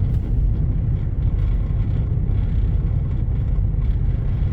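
Steady low rumble of a vehicle idling at a standstill, heard from inside the stopped vehicle.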